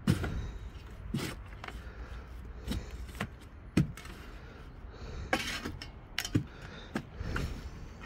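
Shovel digging into the rotten, spongy core of a catalpa log: irregular knocks about once a second, with a longer scrape about five seconds in.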